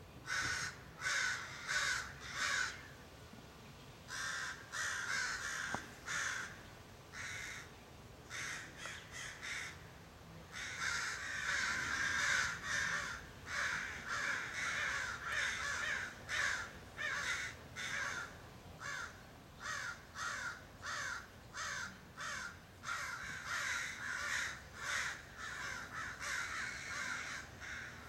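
Several American crows cawing over and over, harsh caws in quick series with several birds overlapping. The calling is sparser with short lulls in the first third, then denser and most continuous for several seconds.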